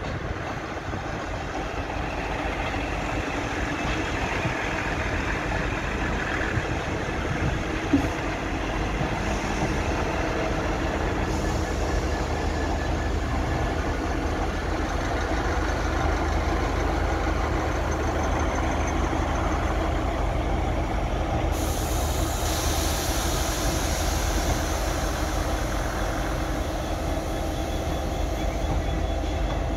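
Diesel trains running in a station: a steady low engine rumble, with a single knock about eight seconds in and a hiss that starts abruptly about two-thirds of the way through.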